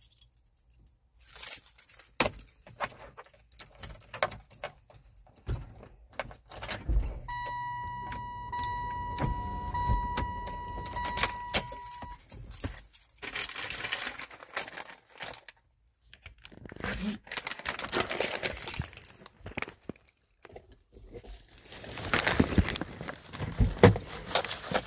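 Car keys jangling and clicking while a car is reached to roll its window up, with a car's steady electronic warning tone sounding for about five seconds in the middle.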